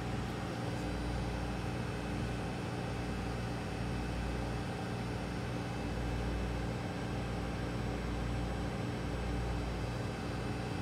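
Steady mechanical hum with several constant tones over it, and a low drone that dips briefly about every two seconds.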